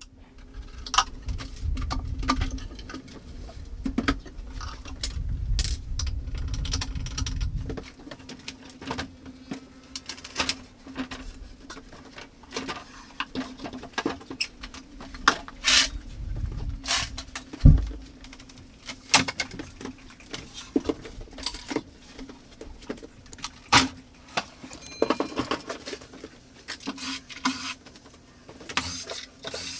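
Scattered knocks, clicks and clatter of wooden kitchen wall cabinets and their metal hanging hardware being handled and taken down, with a low rumble of handling in the first few seconds and a faint steady hum underneath.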